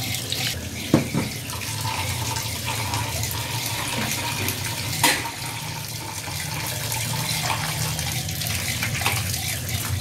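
A kitchen tap runs steadily into a stainless steel sink, pouring over minced meat in a plastic colander while hands squeeze and rinse it. A few short, sharper sounds come about a second in and near the middle.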